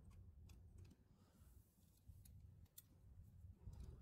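Near silence, with a few faint metallic clicks as needle-nose pliers press and turn a drum brake shoe's hold-down clip.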